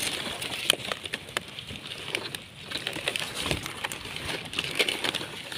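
Stiff pineapple leaves rustling and crackling against each other and a hand, with scattered sharp clicks, as the hand grips and pulls at the fruit's thick stalk.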